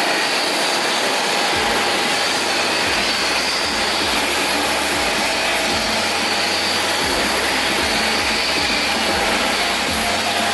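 Loud, steady roar of a running jet aircraft engine, with a faint high whine above it.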